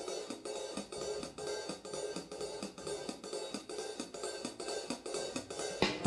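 Jazz drum kit playing an unaccompanied intro in steady swing time, riding cymbal and hi-hat over snare and bass drum at about three strokes a second. The band comes in with saxophone right at the end.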